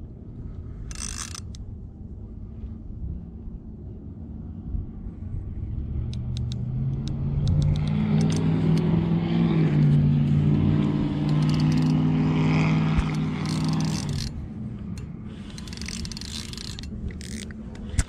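A motor engine passing by: a steady low hum that builds about six seconds in, holds for several seconds and fades away. Short clicks and whirs of a spinning fishing reel being cranked come before and after it.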